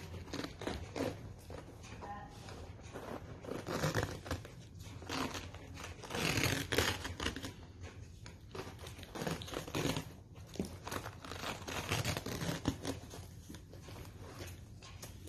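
Self-adhesive cohesive bandage being pulled off its roll and wrapped around a dog's splinted leg, in irregular crackling, tearing pulls; the loudest pull comes about six to seven seconds in.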